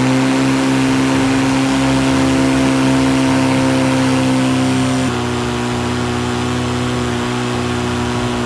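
Cordless electric lawn mower's DC motor and blade running at full speed on a converted 18650 lithium battery pack at about 40 volts: a steady whine over a rush of air. About five seconds in, the pitch drops slightly and holds there.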